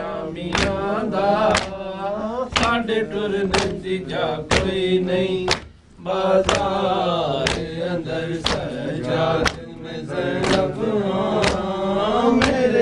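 Male voices chanting a noha, a Shia lament, with sharp chest-beating strikes (matam) keeping a steady beat of about one a second, and a brief pause in the chant about halfway through.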